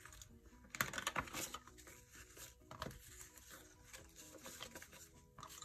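Paper banknotes rustling and flicking as a stack of bills is handled and slipped into a cash-envelope binder pocket, in short irregular strokes. Soft background music plays faintly underneath.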